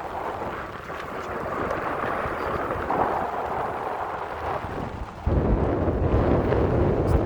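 Wind rushing over the microphone. A louder, gusty low buffeting sets in suddenly about five seconds in.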